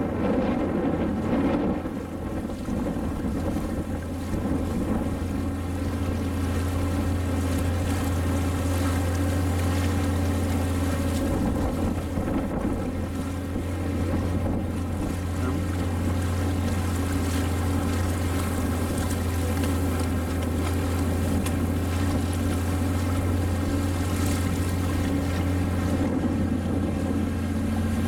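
Motorboat engine running steadily at an even speed, heard from on board the boat, a constant low drone with no change in pitch.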